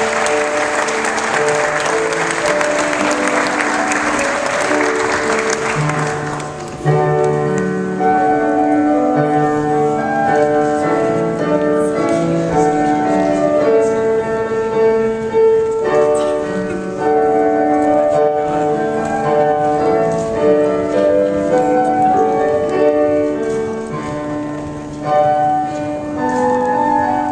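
Guests applauding over instrumental recessional music. The clapping dies away about six and a half seconds in, leaving the music alone with long held notes.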